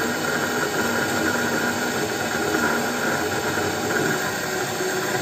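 Aircraft vertical gyro's electric rotor spinning at full speed, about 22,000 RPM: a steady whirring hiss with a faint, even whine.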